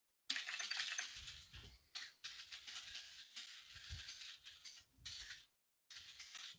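Faint typing on a computer keyboard: a quick, dense run of keystrokes that thins into scattered key clicks, with a short pause near the end.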